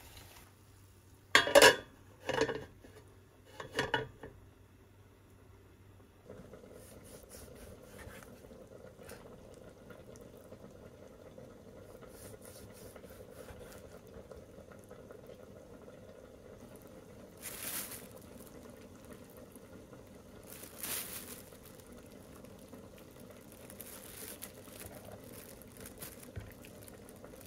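Three loud knocks of cookware in quick succession, then quieter kitchen sounds over a steady faint hum: a knife slicing raw chicken breast on a wooden cutting board, and a plastic bag rustling near the end.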